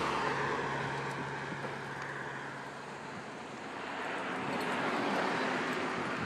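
Road traffic going by: one vehicle's tyre and engine noise fades over the first three seconds, then another swells past about five seconds in.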